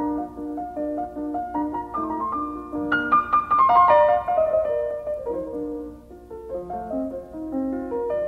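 Background piano music: a gentle melody of single notes and chords.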